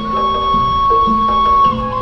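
Gamelan degung music: a suling bamboo flute holds one long high note that slides down near the end, over struck bronze metallophone notes.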